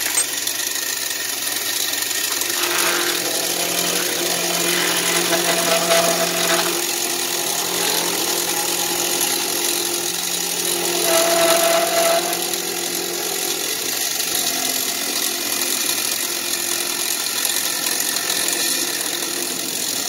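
Milling machine spindle running while an end mill cuts a metal intake adaptor fed by hand, with two stretches of louder cutting noise, about three seconds in and again around eleven seconds.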